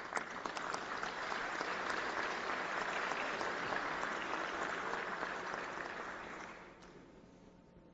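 Audience applauding, a dense patter of many hands clapping that fades out about six and a half seconds in.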